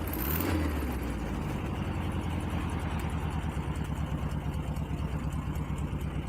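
Volkswagen Beetle 1302's air-cooled flat-four engine idling steadily, its exhaust pulses coming at an even beat.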